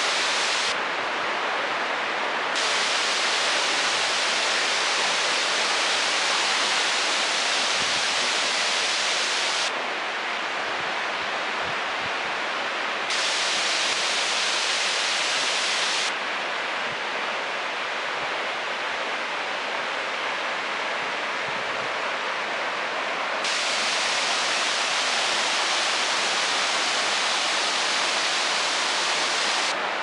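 Waterfall: water pouring and splashing in a steady, loud rush. Its hiss changes abruptly several times, dulling and then brightening again.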